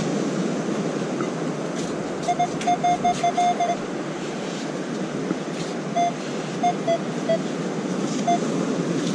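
Minelab Equinox metal detector beeping on a buried target: a quick run of short beeps about two seconds in, then scattered single beeps as the coil passes over it. Its mid-20s target reading and tone mark a dime or other silver. Steady surf and wind noise run underneath.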